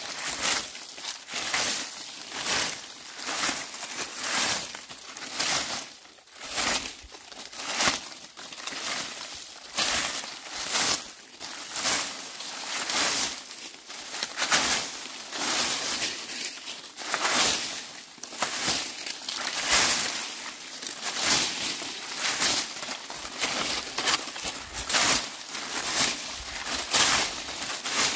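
Dry leaves being swept with a broom: repeated crackly, rustling strokes, a little more than one a second.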